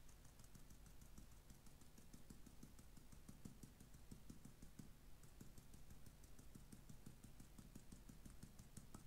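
Faint, quick rattling ticks and soft taps of a metal-mesh-topped shaker being shaken, sifting powdered sugar onto pancakes.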